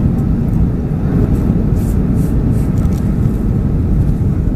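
Steady cabin rumble of a Boeing 737-400 on its landing approach: jet engine and airflow noise heard from a seat over the wing, with the flaps extended. A few faint high clicks about two seconds in.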